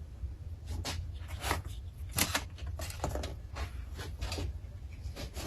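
Handling noise from guitar kit parts and their packaging: a string of irregular small clicks and rustles, a few of them sharper.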